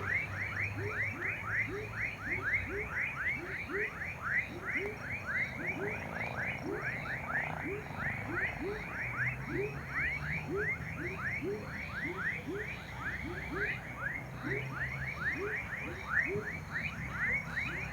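Chorus of frogs and tree frogs calling. Short, high calls repeat quickly, about four a second, over a slower series of lower-pitched calls.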